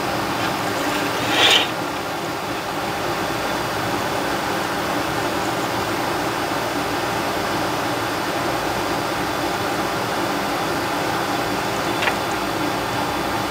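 Steady whirring of a fan running, with a short hiss about a second and a half in and a faint tick near the end.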